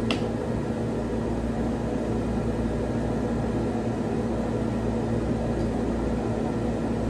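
Steady mechanical hum of a running machine fan, with several fixed tones over a low drone, unchanged throughout. A single short click right at the start.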